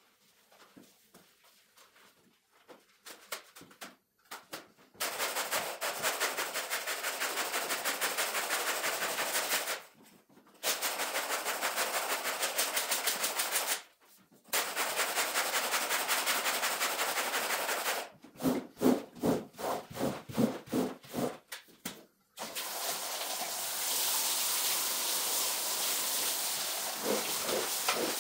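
Long-handled brush scrubbing a wet, soapy rug with very rapid back-and-forth strokes, sped up, in three long stretches with short breaks, then a few single strokes. A steadier hiss takes over in the last few seconds.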